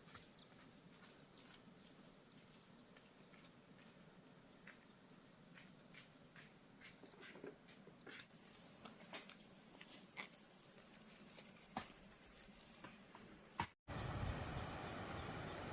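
Steady, high-pitched drone of insects, with a few faint scattered ticks. Near the end it cuts out for an instant and a broader, somewhat louder outdoor background follows.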